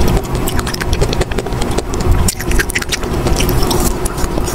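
Close-miked biting and chewing of a frozen ice cream bar: a dense run of crisp crackles and crunches over a steady low rumble.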